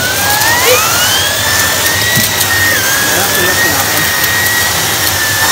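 Numatic tub vacuum cleaner running on high, pulling a small brush head over a shaggy rug. A steady rush of motor and air, with a whine that rises over the first second or so and then holds steady.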